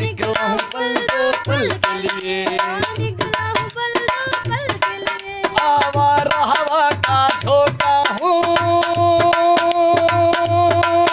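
Dholak, a two-headed barrel hand drum, played in a steady rhythm. A voice sings a wordless, drawn-out melody over it and holds one long note for the last few seconds.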